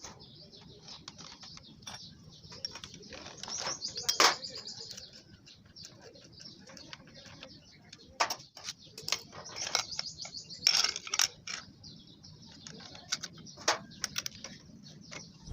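Birds chirping steadily, with scattered sharp clicks and knocks, the loudest about four seconds in.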